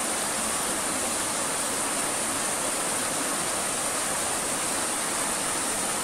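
A rocky forest stream running over stones: a steady rush of water with no change.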